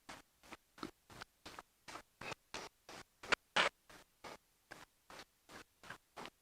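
Faint scratching strokes of writing, short and uneven at about three a second, with a louder pair a little past halfway.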